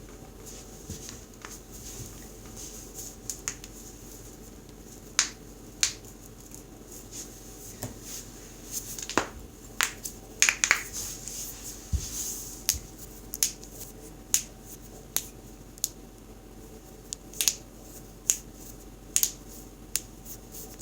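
A string of sharp, irregular clicks and pops, about twenty in all, thickest around the middle, over a steady low hum.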